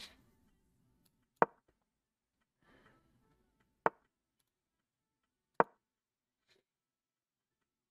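Three sharp wooden clacks of the online chess board's move sound, one for each move played, about one and a half, four and five and a half seconds in; a faint rustle between the first two.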